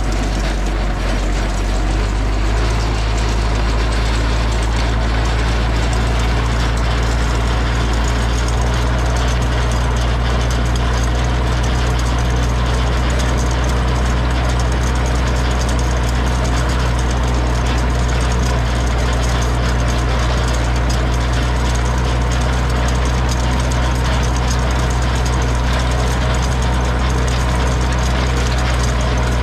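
Zetor 6245 tractor's four-cylinder diesel engine running steadily, its low drone growing slightly heavier about two seconds in.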